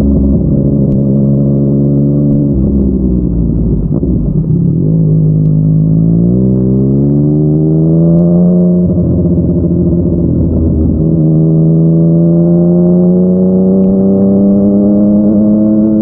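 Yamaha MT-09's three-cylinder engine through a Yoshimura R55 slip-on exhaust, under way. The note drops as the bike slows, then rises sharply under acceleration. It breaks about halfway through, then climbs slowly and steadily again.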